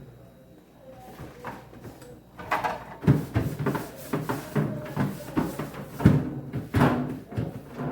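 Household handling sounds: repeated knocks and clatter, like cupboard doors, drawers or containers being moved, starting about two and a half seconds in.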